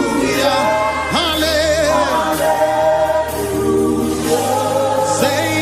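Gospel worship song: voices singing held, wavering notes over sustained bass chords, with no words made out.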